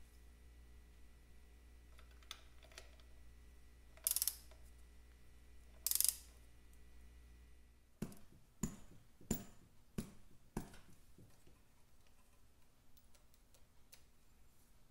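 Small metal parts being handled as a carburettor is fitted by hand to a motorcycle engine. There are two short scraping rustles about four and six seconds in, then a quick run of about five sharp clicks and knocks.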